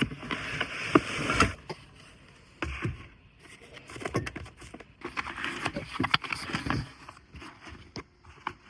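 Irregular knocks, clatter and rustling of cooking gear being handled, with a denser burst in the first second and a half and more scattered knocks later on.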